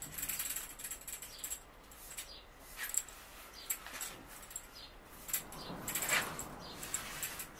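Handling noise from a new Fladen Eurogold 80-130lb boat rod being worked over by hand: scattered small clicks and light rustles, with a longer rustle about six seconds in.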